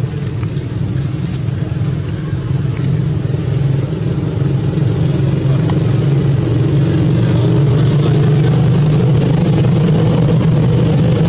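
A motor engine running steadily with a low drone, growing louder about five seconds in and then holding.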